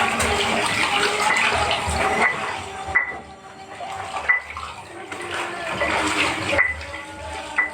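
Water sloshing and splashing as laundry is washed by hand in a tub, with short splashes throughout and a louder stretch in the first half.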